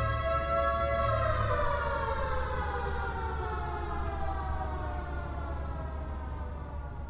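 Warning siren winding down: one held wailing tone that starts sinking slowly in pitch about a second in and keeps falling, over a steady low hum.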